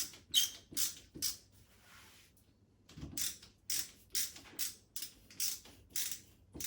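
Screw being turned by hand with a screwdriver into a plastic wall plug, a short rasping scrape with each turn, about two or three a second, with a pause about a second and a half in.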